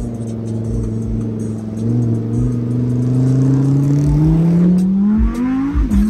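McLaren 570S's twin-turbo V8 running at a steady drone, then revving up hard from about four seconds in as the car accelerates, with a sharp drop in pitch near the end as it shifts up a gear.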